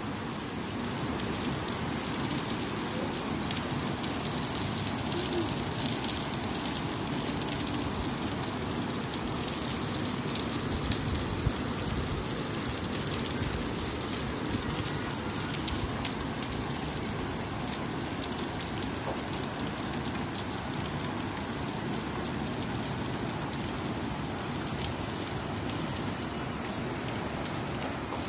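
Steady rain falling on a wet concrete rooftop: an even hiss with scattered sharper drop ticks.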